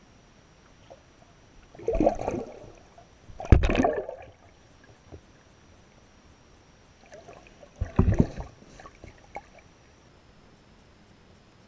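Water splashing in three short bursts, about two seconds in, the loudest at around three and a half seconds, and again near eight seconds.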